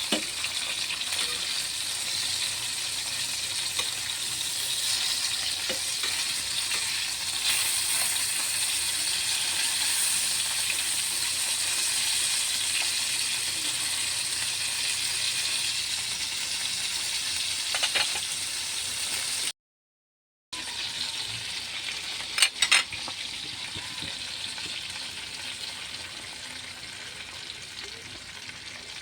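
Chicken breast frying in a pan, with a steady sizzle. The sizzle cuts out for about a second two-thirds of the way through and comes back a little quieter, followed shortly by a few sharp clinks.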